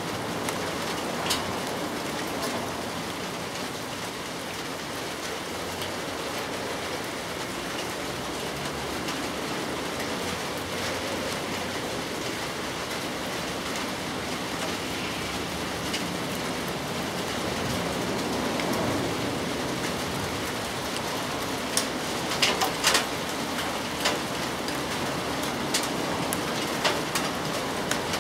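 Steady rain falling, with sharp drops striking close by now and then, more of them in the last few seconds.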